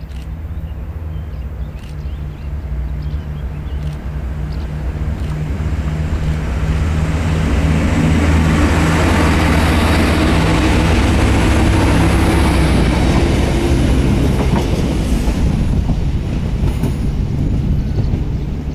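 Siemens Desiro class MQ diesel railcar passing close by: a steady low drone from its diesel engines, with wheels clattering on the rails. It grows louder over the first several seconds, is loudest about halfway through, and fades near the end.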